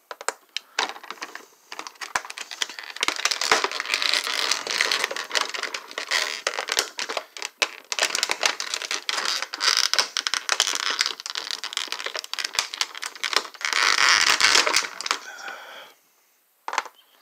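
Plastic toy packaging crinkling and rustling right at the microphone, with many small plastic clicks, as action-figure accessories are pulled free; it stops about a second before the end.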